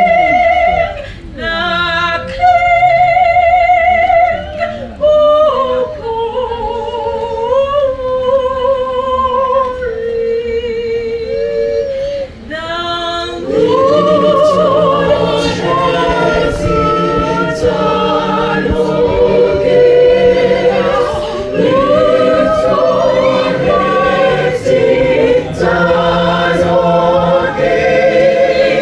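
A choir singing, with sustained, gliding vocal lines. The texture is lighter at first, and the full choir with lower parts comes in about halfway through.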